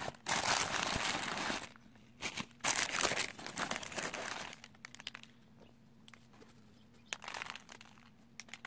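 Tissue paper crinkling and rustling in bursts as hands dig through a packed box and unwrap a bath bomb. There are two long stretches in the first half and a short one near the end, with quiet pauses between.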